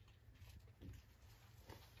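Near silence: a steady low rumble with two faint, light knocks, one about a second in and one near the end.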